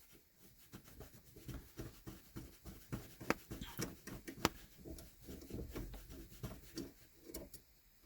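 Faint, irregular clicks and taps of hands working on the shifter's cross-cable rod end and linkage, with a couple of sharper metallic clicks around the middle.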